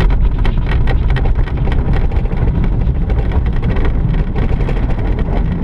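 PW-6U glider rolling fast across a grass runway on its wheels during an aerotow takeoff: a loud, steady low rumble with constant rattling and knocking of the airframe over the rough ground.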